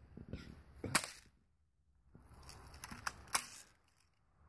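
BB gun being fired: a sharp pop about a second in and another a little after three seconds, with softer handling clicks just before the second.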